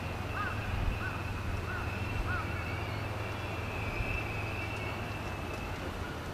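Diesel train engine idling at a station with a steady low hum and a faint steady high tone. A bird calls four short times in the first couple of seconds.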